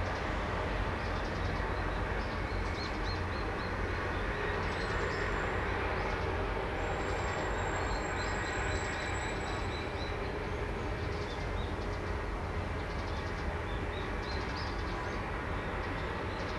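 Steady outdoor background noise, a continuous low rumble without pauses, with runs of faint high chirps repeating through it.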